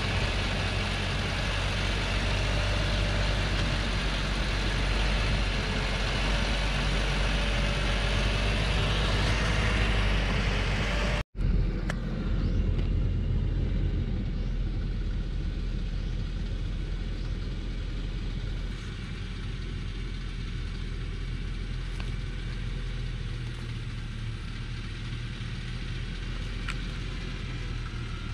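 Old Thaco Forland truck's diesel engine running steadily under a load of acacia logs. The sound drops out for an instant about a third of the way through and comes back a little quieter.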